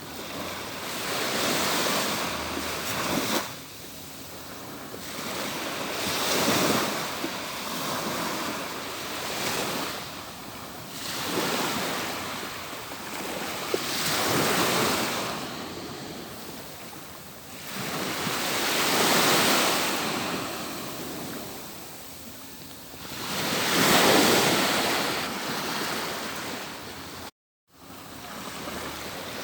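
Atlantic surf breaking on a beach, waves rolling in one after another every few seconds, each a rush that swells and fades. The sound cuts out completely for a split second near the end.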